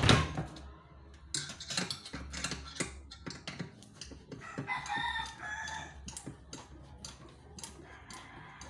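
A loud clunk as a power drill is set down on the workbench, then small metal clicks and taps of hand work with a screwdriver on an aluminium window frame. A rooster crows once, about four and a half seconds in.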